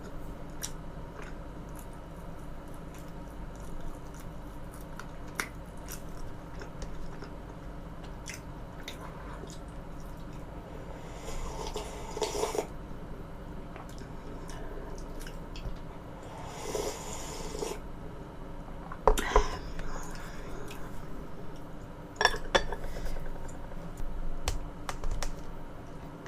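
Close-miked eating: chewing and mouth sounds, with sharp clicks of utensils against a dish. There are two longer noisy stretches around the middle, and louder clusters of clicks later on.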